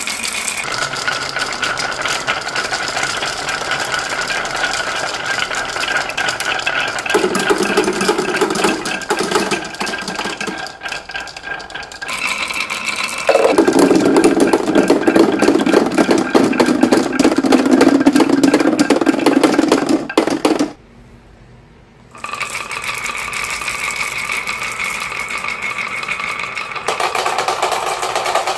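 Many marbles rolling and clattering down a toy marble run track, a dense steady rattle that changes character several times and breaks off for about a second near the three-quarter mark.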